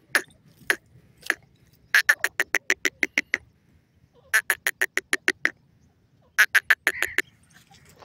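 Grey francolin calling. It gives three single harsh notes, then three fast runs of repeated harsh notes at about seven a second, each run lasting a second or so.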